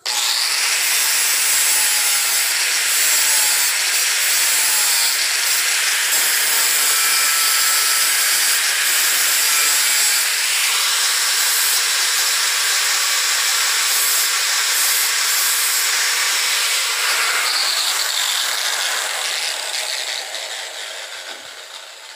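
Angle grinder grinding the steel of a seed-planter part, cleaning the metal before it is welded: a loud, steady grinding hiss that trails off over the last few seconds.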